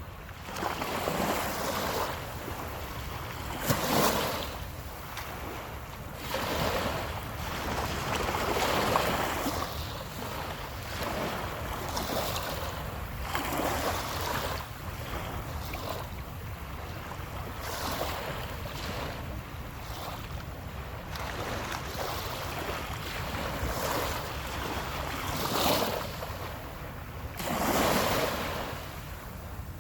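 Ocean waves breaking and washing ashore, surging every few seconds over a steady wash, with wind buffeting the microphone.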